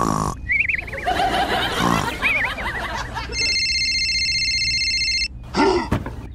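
Squeaky cartoon-style voices with wavering, warbling sounds, then a steady electronic phone tone of several high pitches for about two seconds, then a short squeaky voice near the end.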